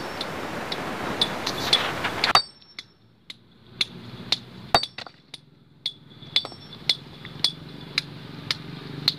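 Steel hammer striking a steel chisel held against a stone boulder: sharp metallic clinks with a short ring, about two a second, as the rock is split. For the first two seconds a loud steady rushing noise runs under the strikes, then cuts off suddenly.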